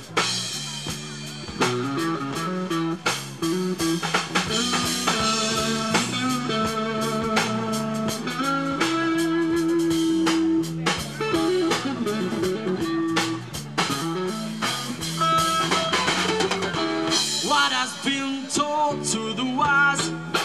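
Live band playing an instrumental passage: electric guitar lead with long held notes, some of them wavering, over bass guitar and a drum kit.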